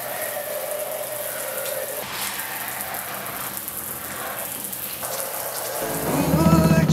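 Kitchen sink sprayer hose spraying water in a steady hiss. Music swells in near the end.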